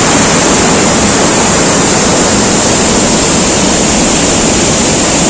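Mountain river rushing over rocks and down a small waterfall: a loud, steady rush of water, described as sounding powerful.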